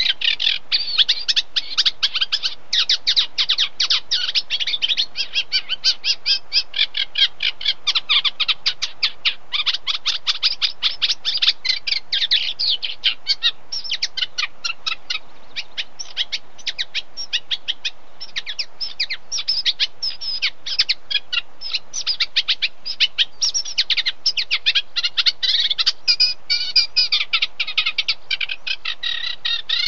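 Reed warbler (Acrocephalus warbler) singing: a long, continuous song of rapid, repeated chattering notes, many to the second, broken by a few short pauses.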